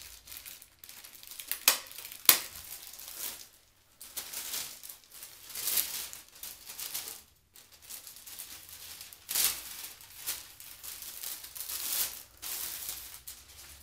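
Plastic packaging bag crinkling and rustling as it is torn open and the monitor stand base is pulled out, with two sharp snaps about two seconds in.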